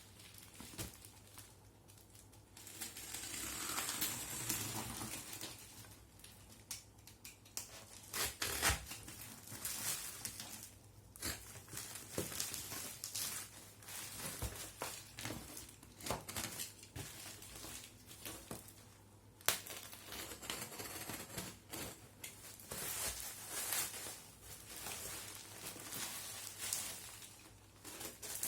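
Packaging being unwrapped by hand: plastic wrap and packing material crinkling and tearing in irregular bursts, with scattered sharp clicks and knocks of cardboard.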